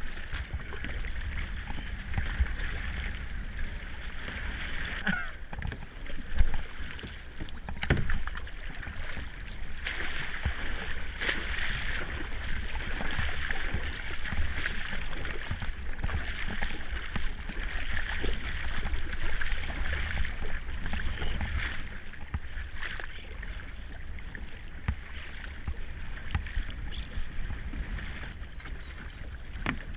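Kayak being paddled on a river: water splashing and rushing along the paddle and hull, over a steady low rumble, with a couple of louder splashes about six and eight seconds in.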